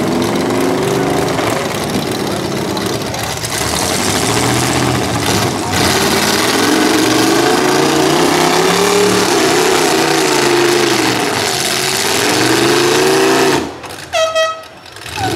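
Demolition derby car engines revving hard, their pitch rising and falling as the cars push against each other with wheels spinning. The engine noise drops away suddenly near the end, followed by a short horn blast.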